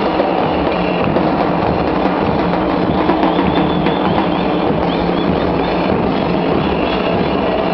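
Murga band's bass drums (bombos) playing a loud, steady dance rhythm.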